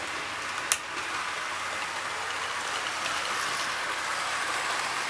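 Several OO gauge model trains running around the layout's track: a steady, hissing rattle with one sharp click just under a second in.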